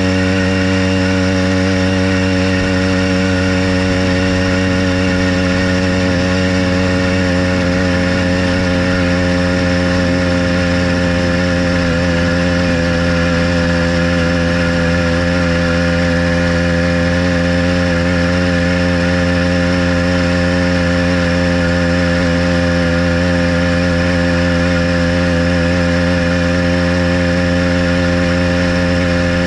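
Small engine of a motorized bicycle running steadily while riding, holding a nearly constant pitch with only slight wavering in engine speed.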